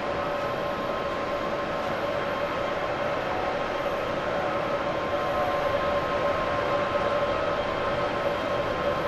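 Boeing 787-8 airliner's Rolls-Royce Trent 1000 turbofans at takeoff power during the takeoff roll: a steady rush of jet noise with a steady whine on a few pitches, growing a little louder about halfway through.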